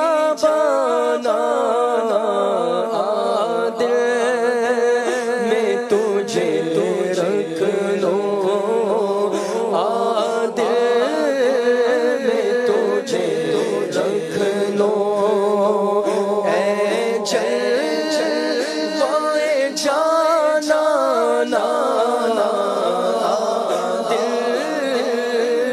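Background music: a song carried by a singing voice, going on steadily throughout.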